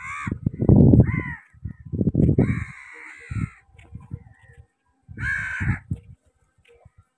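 Crows cawing: about four harsh calls, the third one longer, over bursts of low rumbling noise.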